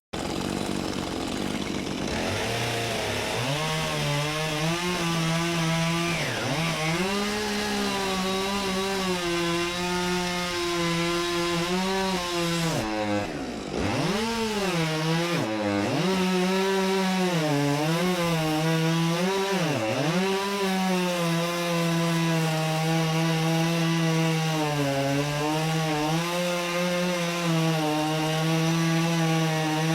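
Chainsaw running at high revs, cutting wood. It revs up about three seconds in, and its pitch dips sharply and recovers several times as the chain loads in the cut.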